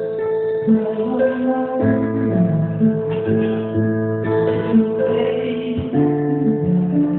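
Live band music: guitar and keyboard playing held chords that change every second or so.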